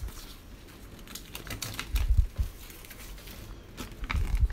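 Folded paper sheets being handled and unfolded, crackling and rustling in quick short ticks, with a couple of dull low bumps, about two seconds in and near the end.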